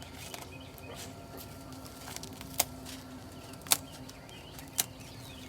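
Scissors snipping a turkey's wing feathers: three sharp snips about a second apart.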